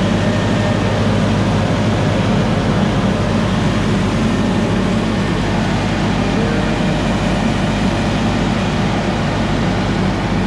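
Nilgiri Mountain Railway steam locomotive standing with steam up after being fired, giving a loud, steady hiss and rumble over a constant low hum.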